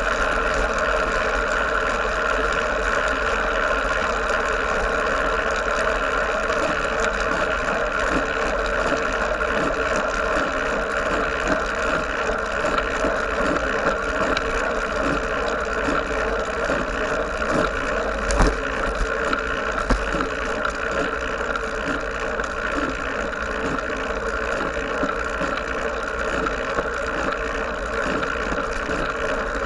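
Steady wind and road noise picked up by an action camera mounted on a moving road bike, with a single knock about two-thirds of the way through.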